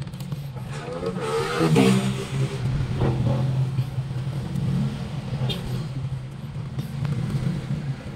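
A vehicle engine running steadily at a low, even hum, rising briefly and louder about one to two seconds in.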